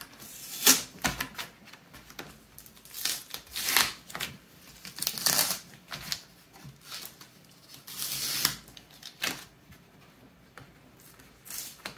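Cardboard packing and paper handled by hand: irregular rustling, sliding and scraping of cardboard, with a sharp knock or tap about a second in.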